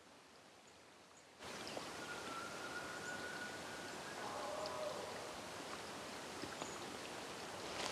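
Distant bull elk bugling: a faint high whistle held for about a second and a half, dropping into lower notes. Under it a steady hiss that comes up suddenly about a second and a half in.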